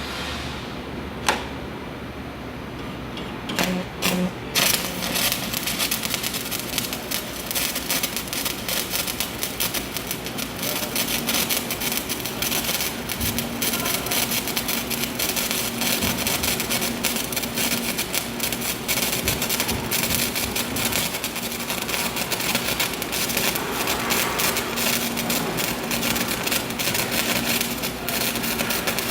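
Electric arc welding a fillet joint on 1/2-inch steel plate: after a few sharp clicks the arc catches about four seconds in, then crackles steadily and fast.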